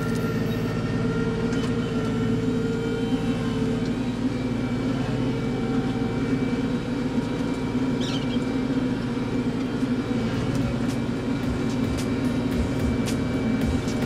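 Kubota tractor's diesel engine running steadily under load, driving a front-mounted snowblower that is throwing snow from its chute.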